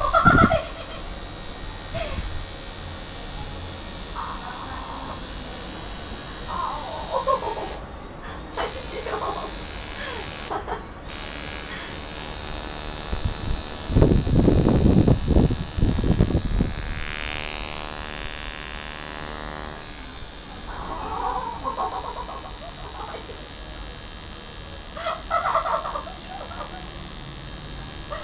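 Coil tattoo machine buzzing steadily while it works on skin, cutting out briefly twice about a third of the way in. Short squeaky vocal sounds come in over it, and there is a louder noisy stretch about halfway through.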